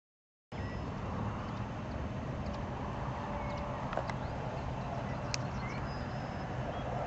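Wind buffeting the microphone, a steady low rumble that cuts in about half a second in, with a few faint short bird chirps over it.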